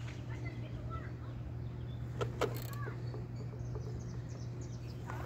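Outdoor background: a steady low hum with faint bird-like chirps, and a couple of light clicks a little over two seconds in.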